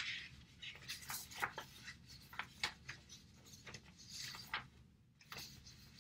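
Sheets of printed paper rustling and sliding over one another as a hand leafs through a stack of pages: a string of short, irregular crinkles and scrapes.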